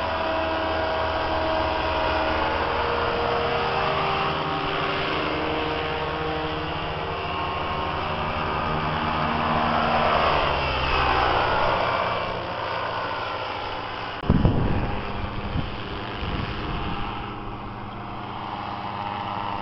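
Engine and propeller of a powered paraglider quad flying low past, its pitch rising and falling as it goes by. A burst of loud thumps about fourteen seconds in.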